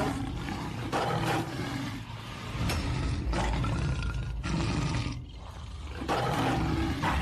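Several lions growling at close range, a rough low call about every second, with a short lull about five seconds in.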